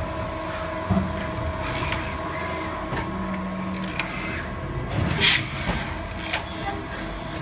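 Brass fitting machining machine running under coolant spray: a steady mechanical hum with a few steady tones, knocks of the tooling about a second and four seconds in, and a short hiss about five seconds in.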